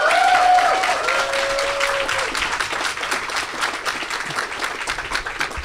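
Audience applauding, with two long whoops over the first two seconds; the clapping slowly dies down.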